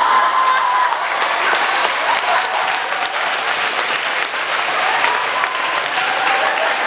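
Hall audience clapping steadily throughout, with a few high voices calling out over the clapping.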